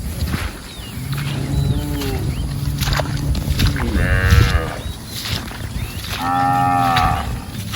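Cattle mooing: three calls in turn, a long low one, then a shorter higher one, then a loud, held one near the end.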